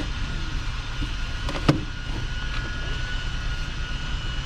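A single sharp knock as a car battery is handled and pulled out of its tray, over a steady low rumble with a faint high whine in the background.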